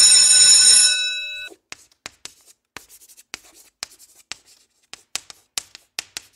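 A bright bell ring that fades out after about a second and a half, followed by a run of short, irregular taps of chalk writing on a blackboard, a sound effect for handwritten text.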